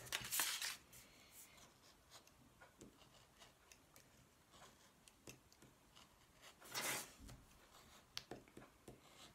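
Craft knife cutting through a paper stencil on a cutting mat: faint scratchy strokes of the blade, with two louder brief scrapes, one at the start and one about seven seconds in.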